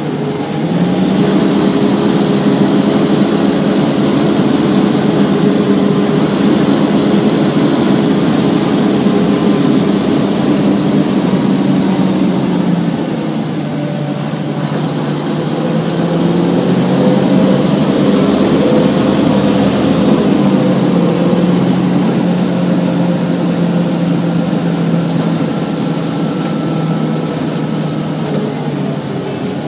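Diesel engine of a 1999 Gillig Advantage transit bus, a Cummins M11 driving an Allison B400R automatic transmission, running steadily under way. The engine note eases off about halfway, then picks up again, while a high whine rises and falls.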